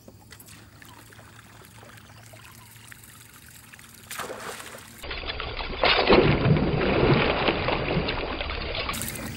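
Faint trickling water, then about five seconds in loud, irregular splashing as a giant snakehead strikes a topwater buzz-minnow lure at the surface.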